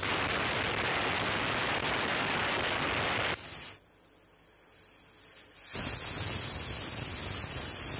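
Stovetop pressure cooker whistling twice: steam hisses out from under the weighted valve in two bursts of about three seconds each, the second building up briefly before it blows. The cooker is at full pressure, and the whistles mark the cooking of the rice.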